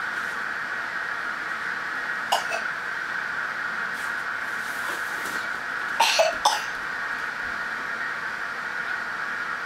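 A toddler's short cough-like vocal noises: a brief pair about two seconds in and a cluster of three around six seconds, over a steady hiss.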